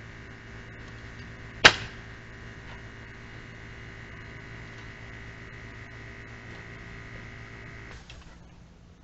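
Pneumatic nail gun firing once, sharp and loud, about two seconds in, driving a 3.5-inch smooth-shank nail into hard oak. Under it, a steady motor hum that stops about a second before the end.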